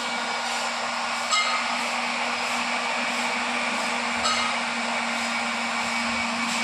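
Hot-air plastic welding gun blowing steadily: an even rush of air over a low steady hum, with two brief sharper sounds about a second and a half and four seconds in.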